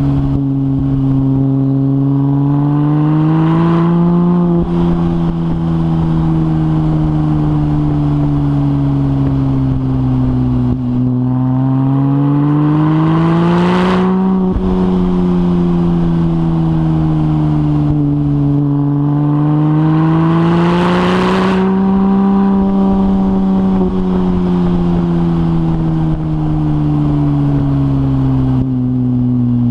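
Porsche 996 Turbo's twin-turbo flat-six, running through a decat stainless exhaust, pulling under way. Its note rises and falls slowly three times, with a short hiss near each peak.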